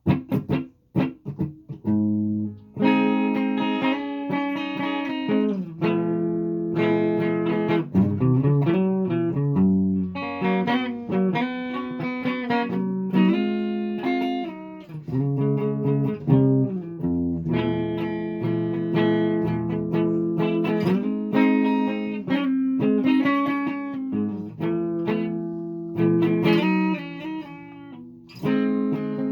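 Guitar being played: a few short plucked notes at first, then a continuous passage of ringing notes and chords.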